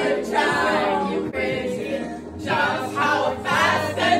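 Several voices of teenagers and adults singing together loudly in a karaoke sing-along, phrase after phrase.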